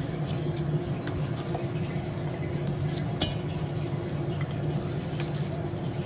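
A steady low hum runs throughout, with a few faint soft taps as onion slices are set down in an enamelled cast-iron pot.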